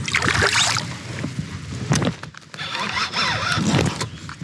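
A hooked northern pike thrashing and splashing at the surface beside a kayak: a burst of splashing at the start, a sharp click about two seconds in, then more splashing and rattling as it fights on the line.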